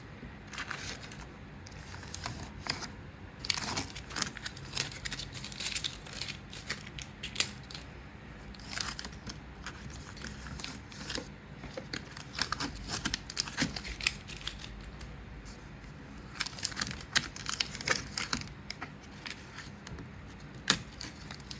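Tape being peeled off a plastic door handle and crumpled up: irregular crackling and short ripping sounds that come in clusters with quieter gaps between them.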